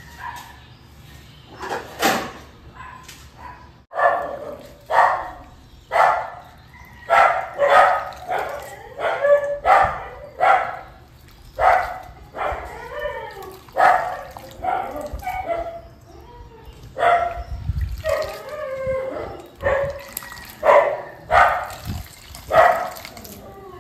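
A dog barking over and over, about one bark a second, now and then two in quick succession.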